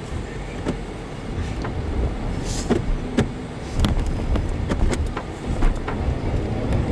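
Stock Jeep Wrangler Rubicon's engine running as the Jeep sits stuck in deep snow, a steady low rumble with scattered short knocks and clicks.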